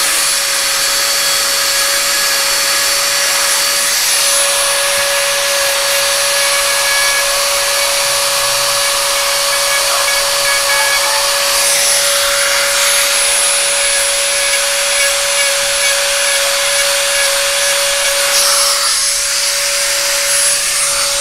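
Dremel rotary tool running at a steady high speed, one unbroken high whine with hiss, grinding down a parrot's thick, overgrown beak.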